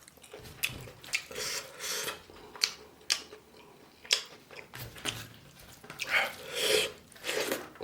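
Close-miked eating sounds: chewing and mouth noises in several stretches, with a number of sharp clicks against the plate.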